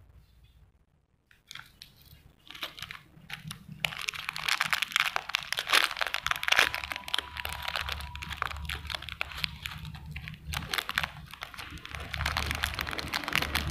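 Thin clear plastic lure bag crinkling as it is handled and pulled open by hand. Nearly quiet for the first couple of seconds, a few crackles, then dense continuous crinkling from about four seconds in.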